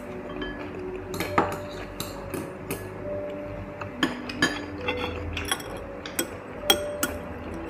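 Chopsticks and spoons clinking against glass bowls and plates while eating: a dozen or so sharp, irregular clicks, the loudest about 1.4 s and 6.7 s in.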